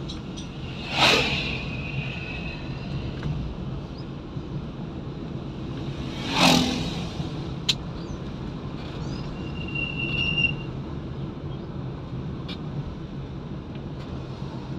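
Steady engine and road noise heard from inside a moving car. An oncoming motor scooter passes with a short swell about a second in, and a second similar pass-by swell follows about six and a half seconds in.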